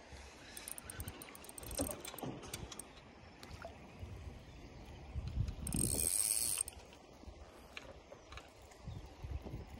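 Daiwa Caldia spinning reel being wound in, whirring and clicking, with knocks from handling the rod while a small fish is brought in. A louder hiss lasts about a second, about six seconds in.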